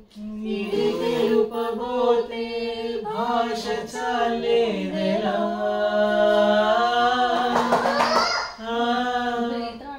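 Voices singing a song together in practice, holding long notes over a steady low note underneath. A rising glide comes about eight seconds in, just before a short break.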